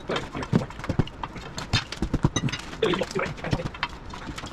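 Irregular knocks and clanks of metal tools working on a skid steer's rubber track and undercarriage, a quick string of sharp strikes and a few duller thuds.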